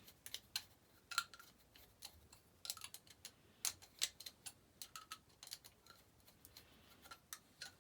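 Brass Zippo-style petrol lighter's spring-loaded flint screw being screwed back into the insert by hand: a run of faint, irregular small metallic clicks and ticks.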